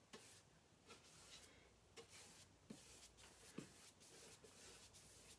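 Faint, repeated strokes of a Purdy paintbrush brushing a second coat of black paint onto a wooden board, with a few small ticks among them.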